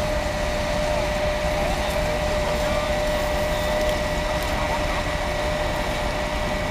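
Steady drone of emergency vehicles' engines running at idle, with a constant hum over a low rumble.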